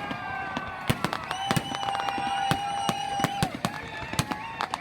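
Fireworks going off in a dense run of sharp bangs and crackles. Through the middle a steady pitched tone is held for about two seconds above them.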